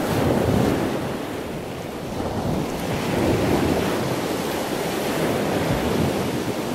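Ocean surf: a steady wash of breaking waves that swells about half a second in and again about three seconds in.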